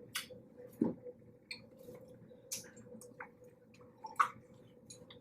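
Wet eating sounds of a seafood boil: scattered smacks, squishes and small clicks of chewing and handling buttery shellfish, over a faint steady hum.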